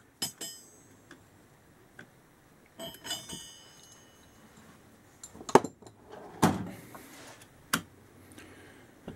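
Star-drive (Torx) bit sockets being handled: scattered sharp clicks and knocks, with a short metallic jingle about three seconds in.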